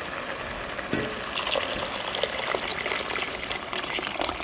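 Water poured into an enameled cast-iron Dutch oven full of sautéed vegetables, splashing and filling the pot from about a second in.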